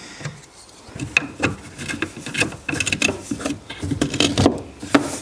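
A small 3D-printed plastic fastener being pressed into a plastic trim cover by hand: irregular light clicks and taps with plastic rubbing and scraping.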